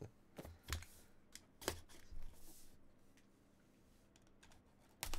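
Cardboard trading-card box being handled: about half a dozen light taps and scrapes in the first three seconds, then faint sounds as a box cutter is run along the box's seal.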